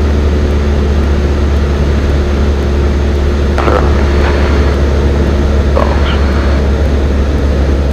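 Cessna 172N's four-cylinder Lycoming engine and propeller heard inside the cabin in flight: a steady, loud drone at about 2100 RPM.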